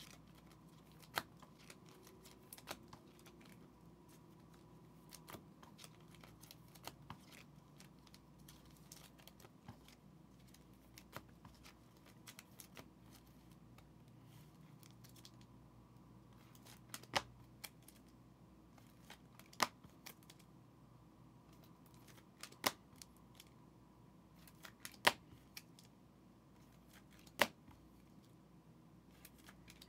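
Quiet handling of trading cards and packs on a table: sparse sharp clicks and snips, a dozen or so spread irregularly, with the clearest ones in the second half.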